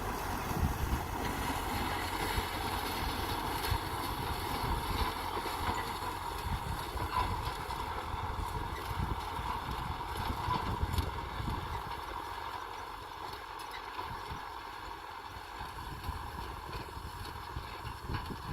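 Kubota M6040 tractor's diesel engine running steadily, a little quieter in the second half.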